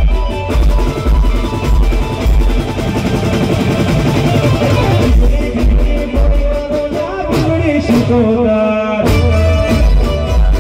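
Live garba band music played loud through a PA: a heavy drum beat about twice a second under singing and a keyboard melody. About two thirds of the way through the beat drops out briefly, leaving a wavering held melody, then kicks back in.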